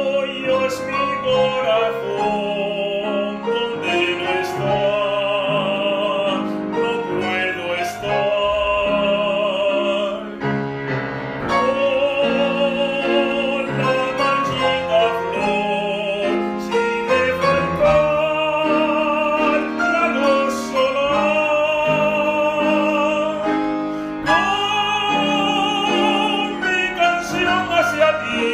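Tenor singing an operetta aria in Spanish in an operatic style, his voice wavering with a wide vibrato, over piano accompaniment. The long sung phrases break for short breaths about ten seconds in, near the middle and about three-quarters of the way through.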